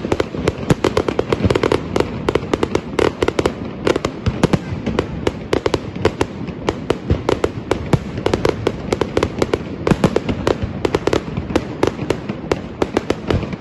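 Aerial fireworks display: shells going off in quick succession, many sharp bangs a second with no pause.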